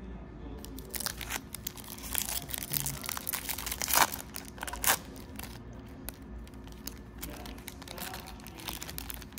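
Foil wrapper of a trading-card pack crinkling and tearing as it is ripped open by hand. Sharp crackles come thick and fast for the first few seconds, the loudest about four seconds in, then thin out to lighter rustling.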